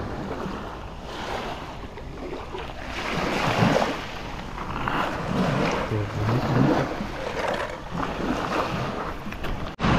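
Small waves washing onto a beach of shells and pebbles, swelling and ebbing every few seconds, with wind buffeting the microphone.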